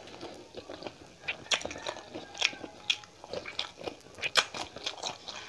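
Close-up eating sounds of biting into and chewing okra pods: irregular crunches and clicks, with a few sharper bites near the middle and about four seconds in.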